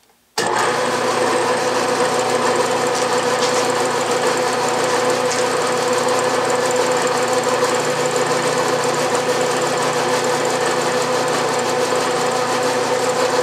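Milling machine spindle switched on about half a second in, then running steadily with a constant hum while it spins a wiggler edge finder.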